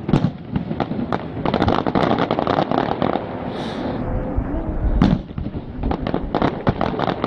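Aerial fireworks shells bursting one after another: a dense run of bangs from about a second and a half in, then a single bang at about five seconds and another quick cluster just after.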